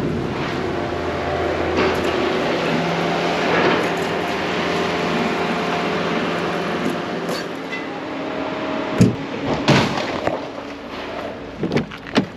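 Truck engine running steadily, then a few sharp clunks, the loudest two about nine and ten seconds in.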